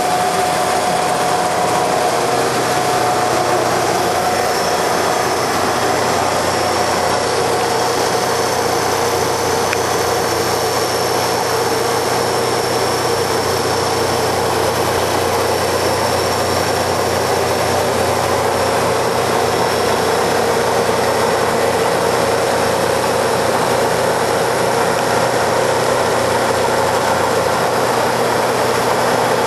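Fullpower ACWL-1500B hydraulic automatic copy wood lathe running, a loud, steady machine noise with a few steady tones in it.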